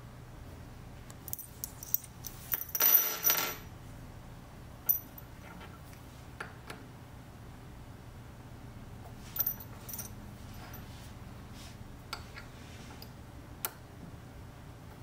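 Small steel pins clinking against each other and against an aluminium plate as they are handled and set into its holes: scattered metallic clicks, with a louder clatter and a brief high ring about three seconds in.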